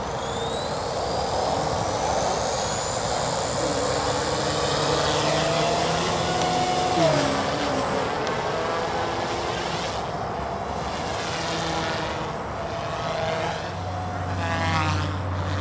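Align T-Rex 250 electric RC helicopter with a Scorpion brushless motor: a high whine that rises steadily in pitch as the rotor head spools up, then shifts up and down in pitch in flight, with a brief dip about seven seconds in.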